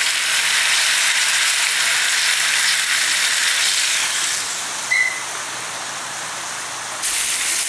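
Chopped garlic frying in very hot olive oil in a nonstick pan, a dense steady sizzle while it is stirred with a wooden spoon; the garlic is being fried until dark brown. The sizzle drops somewhat after about four seconds, and a brief high beep sounds about five seconds in.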